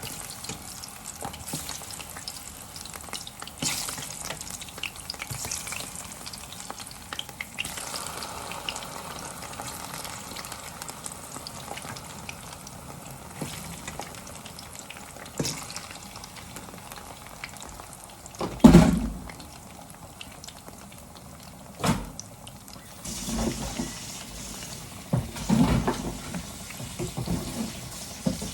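Sliced plantain (dodo) frying in hot oil with a steady sizzle, broken by a few sharp knocks of a utensil against the pan. The loudest knock comes about two-thirds of the way in, and more clattering follows near the end.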